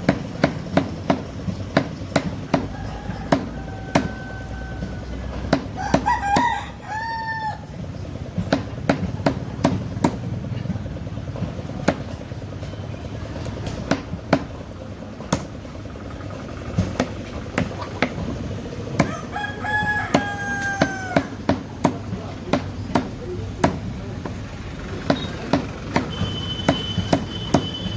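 A blade chopping chicken in quick, even strokes, about two knocks a second. Live chickens call over it, with a rooster crowing around six seconds in and again around twenty seconds in.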